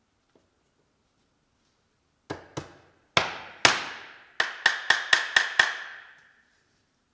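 Hammer blows, about ten in all: two lighter taps, two heavy strikes, then a quick run of six. Each blow leaves a short ringing tail.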